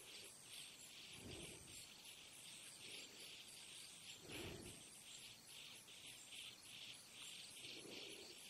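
Crickets chirping in a steady, even pulse of about three chirps a second. A soft low sound comes in briefly three times: about one second in, midway, and near the end.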